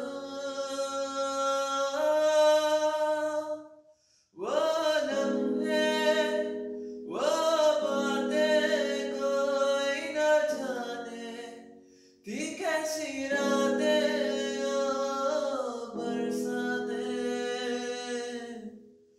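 A man singing long held notes while accompanying himself with sustained chords on an electronic keyboard, in three phrases with short breaks between them.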